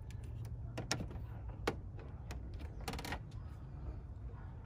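Scattered light clicks and taps from hands handling parts in a car's engine bay, with a short rattle of clicks about three seconds in, over a steady low hum.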